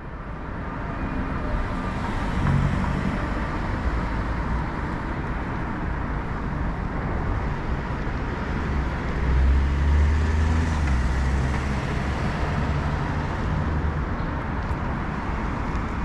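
City street traffic: cars and other vehicles passing with a steady hum of tyres and engines, fading in over the first couple of seconds. A heavier low rumble of a passing vehicle swells a little past the middle.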